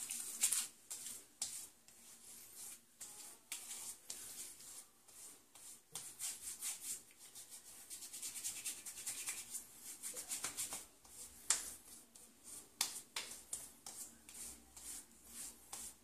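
Hands patting and rubbing aftershave lotion onto the face and neck: a faint run of light, irregular pats on wet skin with rubbing in between.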